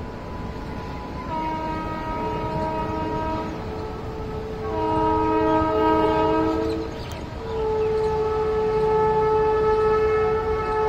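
Indian Railways locomotive's multi-tone air horn sounding as the train approaches: two blasts of about two seconds each, then a long blast held from about seven seconds in, over the steady rumble of the train.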